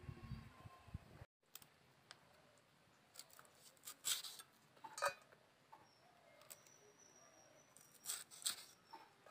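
Green vegetables being sliced against a bonti, a fixed curved iron blade: a few short, crisp cuts with pauses between them, strongest near the middle and again near the end.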